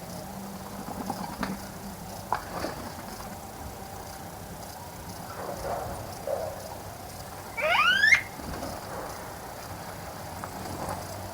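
A bird gives one loud call that rises quickly in pitch, about eight seconds in. A few faint short chirps and clicks come earlier.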